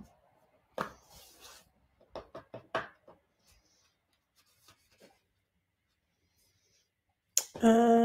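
A few sharp taps and knocks from chicken tenders being pressed into a sesame crumb in a dish, one about a second in and a quick run of them around two to three seconds in. Near the end a person's voice is held for about a second.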